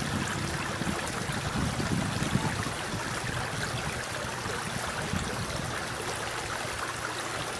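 Airbus A300-600ST Beluga's turbofan engines heard from afar on approach: a steady rumbling noise.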